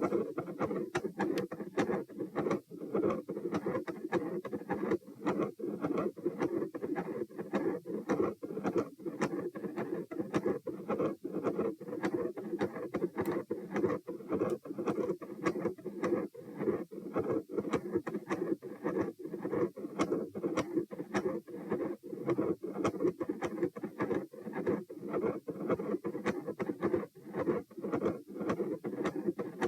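Heartbeat heard through a stethoscope, with a continuous machinery murmur running through each beat, the pattern typical of a patent ductus arteriosus. Frequent clicks from electrical interference run over it.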